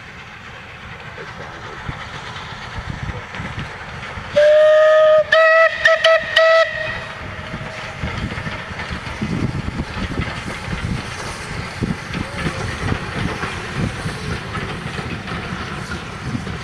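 Steam locomotive whistle: one long blast about four seconds in, then several short ones. The approaching train's rumble grows, and from about eight seconds the locomotive and its carriages pass close by, rattling over the rails.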